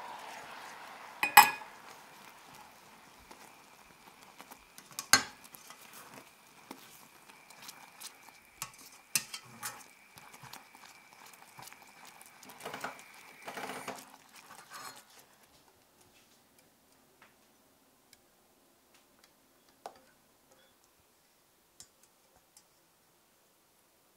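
A spatula stirring and scraping caramel sauce in a stainless steel saucepan, with sharp knocks of the spatula against the pan, the loudest about a second and a half in. A last burst of brisk stirring ends about fifteen seconds in, leaving only a few faint ticks.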